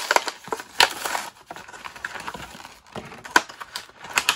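Thin clear plastic blister bubble being peeled off a cardboard action-figure card and handled: irregular crinkling and sharp plastic clicks, the loudest about a second in and again a little past three seconds in.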